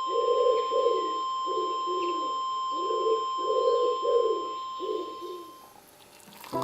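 Pigeon cooing: a run of about eight low coos over five seconds, dying away near the end, with a steady high tone underneath.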